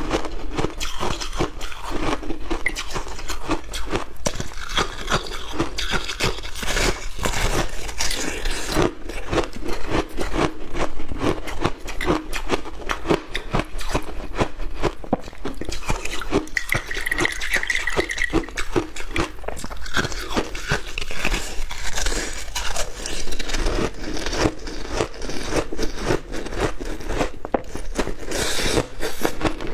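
Dense crunching of a cola-soaked block of compacted crushed ice as it is pressed, bitten and chewed, with many quick crackling bites.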